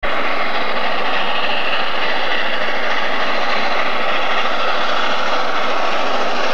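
Double-headed steam locomotives, Reading 2102 and Blue Mountain 425, working toward the listener. They are heard as a loud, steady rushing noise with no separate exhaust beats.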